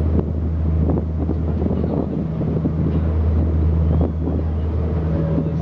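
Wind buffeting the microphone on the open deck of the Hakone pirate ship Victory, over the steady low hum of the ship under way.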